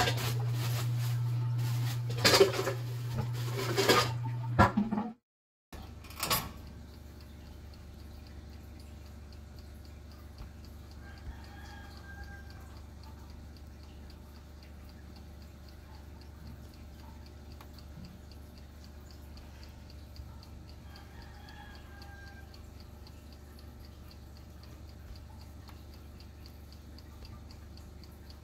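For the first few seconds, a steady hum with several sharp knocks of things being handled on a work table. After a brief cut comes the steady low hum of a running oven, and a rooster crows faintly in the distance twice, about ten seconds apart.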